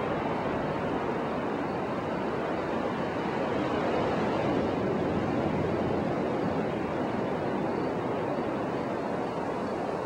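Ocean surf breaking on the beach: a steady rushing noise that swells slightly around the middle.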